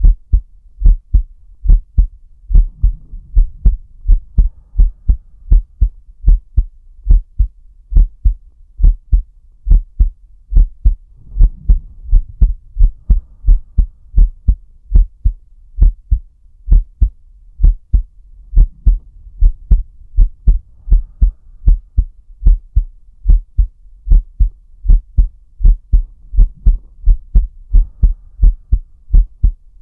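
A person's heartbeat heard up close, a continuous run of deep lub-dub thumps, with slow deep breaths faintly underneath about every seven or eight seconds. The pace of the beats drifts with the breathing: respiratory sinus arrhythmia.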